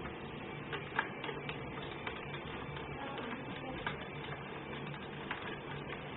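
A few light, scattered clicks and taps of a screwdriver and metal lock parts as screws are driven through a wooden board to join the two door handles, over a steady low hum.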